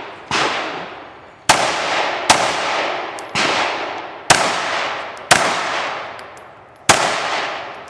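Handgun fired seven times at roughly one-second intervals, with a longer pause before the last shot; each shot leaves a long echo that fades before the next.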